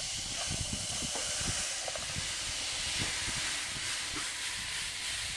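Used sandblasting grit being rubbed and shaken through a fine wire-mesh sieve: a steady gritty hiss, with soft knocks from handling the sieve.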